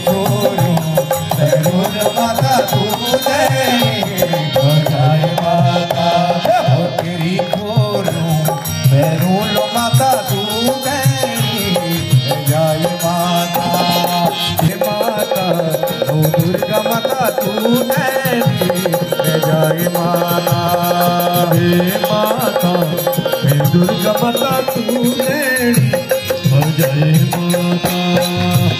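Live devotional bhajan music: harmonium playing a melody over held drone notes, with a steady hand-drum rhythm on a dholak.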